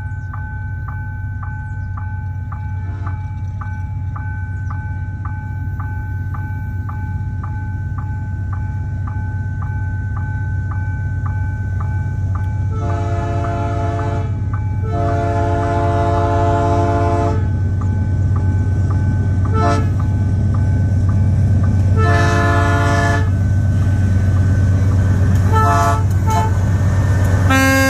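An approaching MRS freight train's diesel-electric locomotive runs with a steady low engine hum that grows louder. From about halfway it sounds its multi-tone horn in several blasts, two long then shorter ones. Before the horn a bell dings steadily about twice a second.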